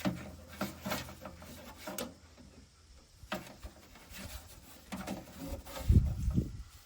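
Handling noises, light clicks and rubbing, as soapy water is worked around a freshly reassembled gas pipe joint to check for leaks. A dull low thump comes about six seconds in.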